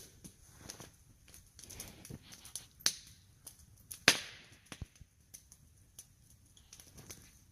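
Campfire crackling: sparse, irregular sharp pops and snaps from burning wood, the loudest crack about four seconds in.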